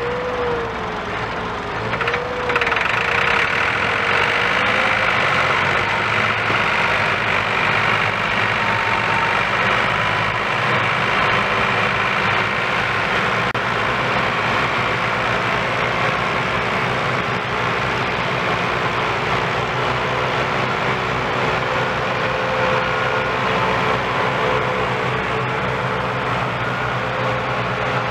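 Diesel engines of several Massey Ferguson tractors chained together, running hard under heavy load while hauling a loaded sugarcane trolley. The sound wavers in pitch at first, gets louder about two seconds in, then holds steady.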